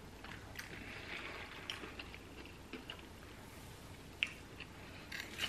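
Faint eating sounds close to the microphone: chewing and small mouth clicks, with a sip through a drinking straw near the end.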